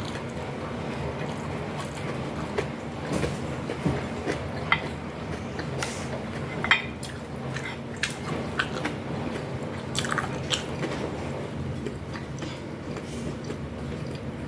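Close-up chewing and biting of food, with scattered short crunches and wet clicks a few times a second, over a steady low hum.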